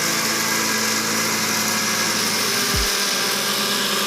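An 800-watt Maharaja blender's copper-wound motor running steadily, its steel jar grinding dry pulses into fine besan powder. A brief low thud comes just under three seconds in.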